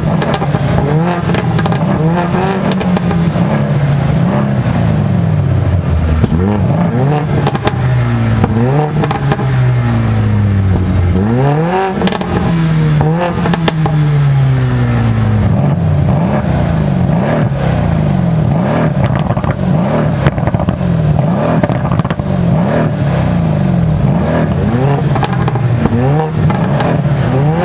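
Mercedes-AMG C63 Coupe's 4.0-litre twin-turbo V8 revving up and dropping back again and again, its pitch rising and falling many times, with a few sharp cracks from the exhaust.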